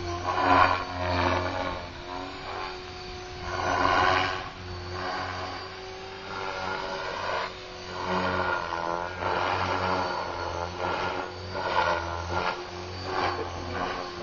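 Align T-Rex 500 flybarless electric RC helicopter flying aerobatics: a steady motor and rotor hum under repeated swelling whooshes of the main rotor blades every second or two.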